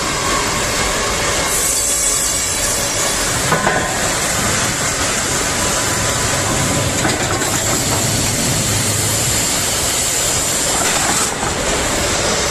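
Loud, steady noise of a sawmill at work, with a strong hiss. The noise shifts in character about a second and a half in and again near the end.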